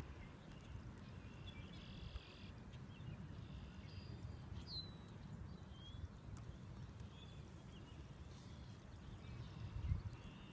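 Low wind rumble on the microphone, with scattered short bird chirps and whistles over it.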